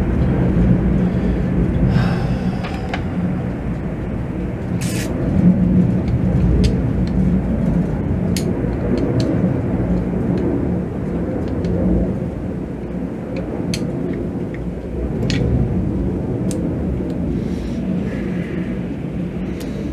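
A steady low rumble, with scattered light clicks and taps as the stiff injection pump parts are handled and worked by hand.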